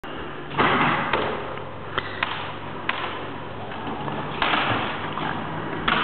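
Automatic timber sectional garage door closing under its electric operator: a steady low motor hum, with several sharp clicks and knocks as the panels run along the tracks. Two louder stretches of rushing noise come about half a second in and again about four and a half seconds in.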